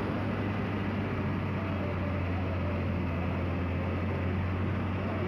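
Bus engine droning steadily with road noise, heard from inside the moving bus.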